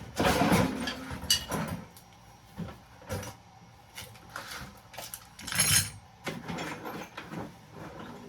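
Scrap metal pieces clinking and clattering as they are handled, in irregular knocks with two louder clatters, one at the start and one about five and a half seconds in.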